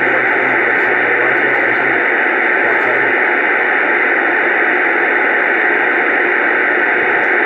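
CB radio speaker putting out steady, loud static hiss over an open channel, with a faint low hum under it for the first few seconds.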